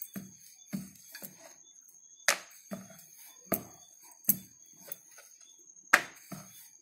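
Wooden rolling pin rolling out paratha dough on a wooden board: uneven knocks and thuds of wood on wood, about one or two a second.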